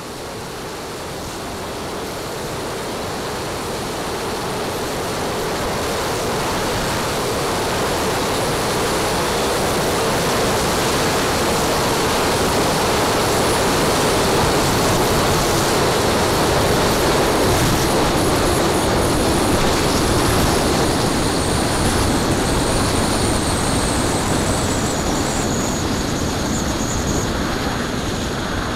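Steady rush of air and jet noise heard from a camera riding on a 1/4-scale RC English Electric Lightning with twin JetCat P120 gas turbines in flight. It grows slowly louder over the first ten seconds or so. A faint high whine wanders in pitch through the middle and later part.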